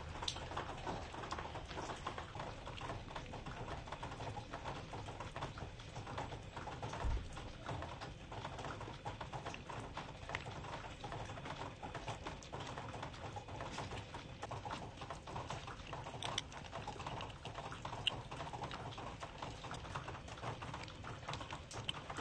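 Calico kitten licking a lickable cat treat squeezed from a tube: a steady run of rapid, small wet licking clicks. There is one low thump about seven seconds in.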